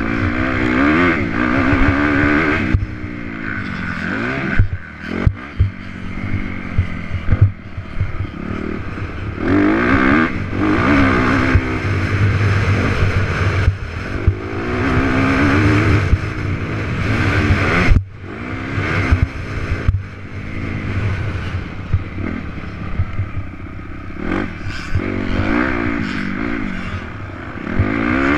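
Honda CRF250R's single-cylinder four-stroke engine heard from the rider's helmet while lapping a motocross track, revving up and falling back again and again through the gears and corners. A few sharp knocks come through as the bike hits bumps and jumps.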